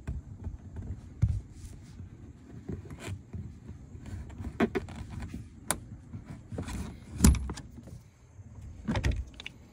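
Flathead screwdriver working behind a manual window crank handle to drive out its metal retaining pin, with scattered metal clicks and small knocks as the blade scrapes and catches on the clip.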